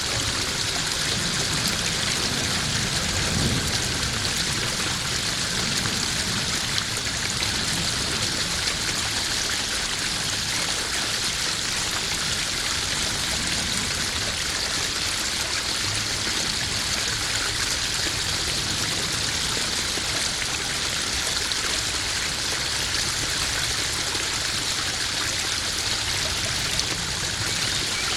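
Small garden pond waterfall: water splashing and trickling steadily into a koi pond.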